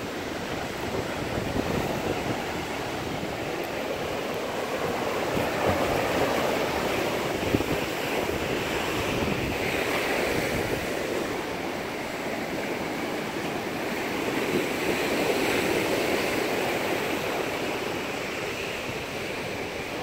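Ocean surf breaking on a beach with wind on the microphone: a steady rushing noise that swells and eases every few seconds.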